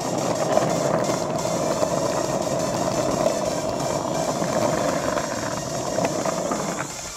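Skateboard wheels rolling over coarse asphalt: a loud, steady rolling noise that drops away near the end.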